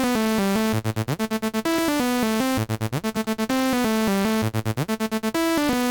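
Synthesizer loop playing a quick repeating melody, run through a tape-emulation plugin (Tape Bus) with the saturation and emphasis turned up; the short phrase repeats about every two seconds.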